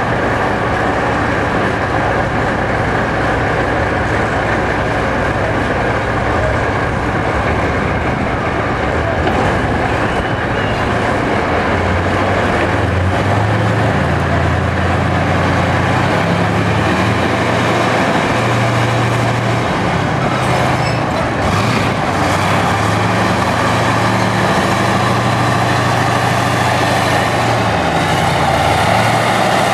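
T-72 tank's V12 diesel engine running as the tank moves slowly and turns on pavement, with the tracks rolling. The engine note steps up and down from about twelve seconds in.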